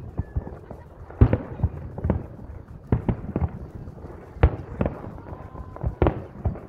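Aerial fireworks shells bursting: about nine sharp bangs at uneven intervals.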